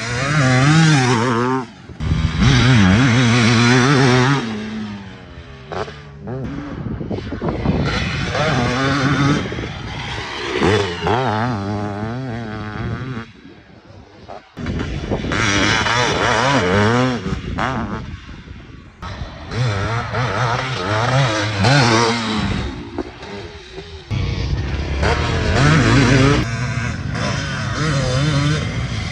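1989 Kawasaki KX500's 500cc single-cylinder two-stroke engine being ridden hard on a motocross track, its pitch rising and falling again and again as the throttle is opened and closed through the corners. About halfway through, the engine goes quiet for a moment over a jump, then picks up again.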